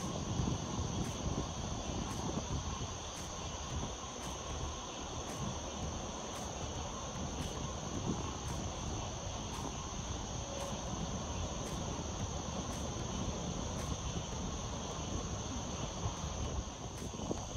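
Night insect chorus, crickets keeping up a steady high-pitched trill without a break, over a low rumbling background noise.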